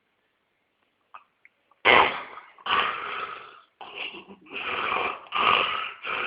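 A pet snoring: after a couple of faint clicks, about six loud, rasping snores in quick succession start around two seconds in.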